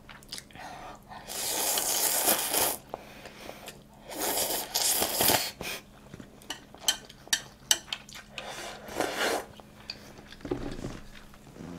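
Eating at a table: chopsticks and tableware clicking and clinking, with three longer rushes of noise, about a second and a half in, around four seconds and near nine seconds.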